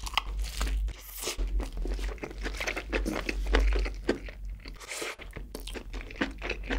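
Close-miked eating sounds: a bite into a cheeseburger right at the start, then chewing, heard as many short, irregular clicks.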